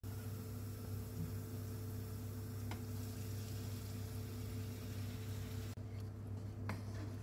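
A steady low electrical hum with an even hiss over it. There is one light tap about three seconds in, and a brief dropout near the end.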